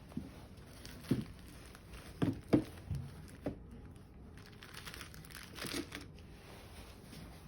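Packaging crinkling and rustling as it is handled, in a series of short crackles over the first few seconds and a longer rustle past the middle.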